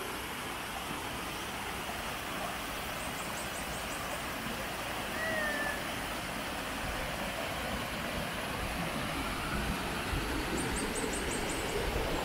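Steady rush of flowing spring water. A short falling whistle comes about five seconds in, and brief trains of rapid high-pitched ticks come twice.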